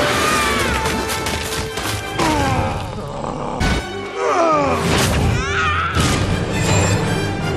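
Animated-film fight soundtrack: a dramatic orchestral score with crashes and thuds. Around 3.5 s and 6 s in there are loud impacts as debris smashes. Several falling-pitch screeches sweep over the music.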